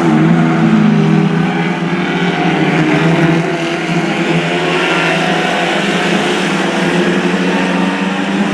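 Several Lightning Rods stock car engines running together at racing speed around the oval, a steady overlapping drone of many engines whose pitch shifts slowly.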